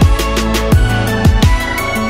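Background electronic music with a steady drum beat.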